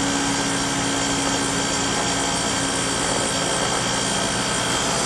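Rheem 3-ton package heat pump running: a steady hum from its compressor and condenser fan, with a few constant tones over an even rush of air.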